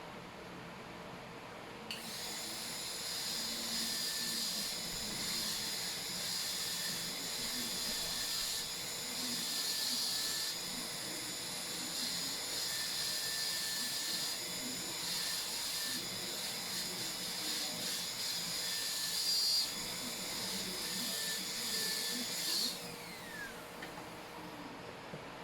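High-speed dental air-turbine handpiece starting up about two seconds in and running with a steady high whine while cutting a cavity preparation in a molar, its pitch dipping slightly under load. Near the end it spins down with a falling whine.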